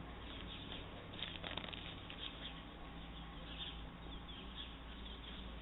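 A small dog mouthing and nosing at an empty sour cream packet on dry grass: irregular crinkling and rustling of the packet and the dry grass, with small clicks, busiest about a second in and again in the second half.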